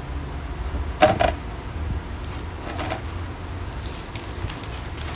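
Handling noise from a phone camera being adjusted: a sharp knock with a brief ring about a second in and a softer knock about two seconds later, over a steady low rumble.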